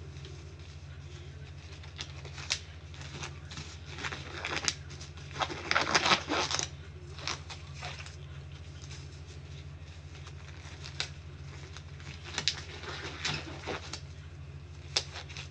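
Steady low electrical hum, with scattered light clicks and a short spell of rustling and handling noise about five to seven seconds in.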